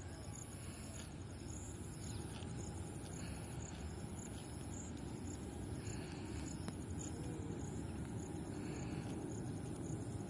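Distant jet airliner climbing out after takeoff, a low rumble that grows slowly louder. Insects chirp throughout in a steady high-pitched pulsing rhythm.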